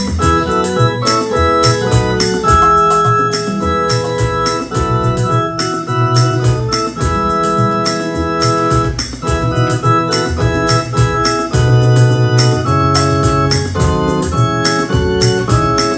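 Electronic keyboard playing a hymn tune in long, held, organ-like chords that change every second or so, over a steady run of sharp high ticks.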